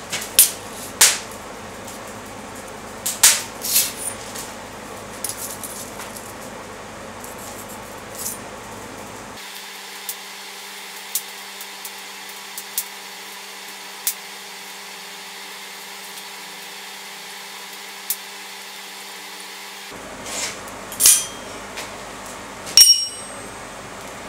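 Steel tools clicking and clinking on the face of an anvil as a steel rule and scriber are handled and laid down, over a steady background hum. Just before the end, a louder clank as a steel bar is set on the anvil rings briefly.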